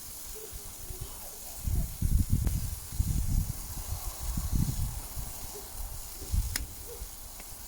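Food sizzling on a grill, a steady hiss. From about two seconds in, irregular low rumbles come and go, and there is one sharp click near the end.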